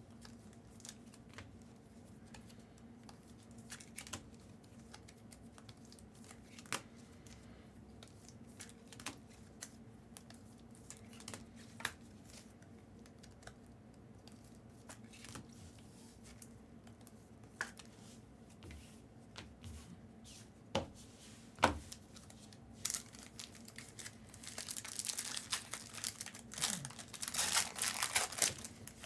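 Scattered light clicks and taps as trading cards are handled, then, about 24 seconds in, a few seconds of crinkling and tearing as a card pack wrapper is ripped open.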